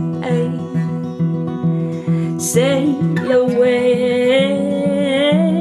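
Live acoustic song: an acoustic guitar strummed in a steady rhythm under a woman's sustained singing. A short hiss, like a sharp breath or sibilant, comes about halfway through.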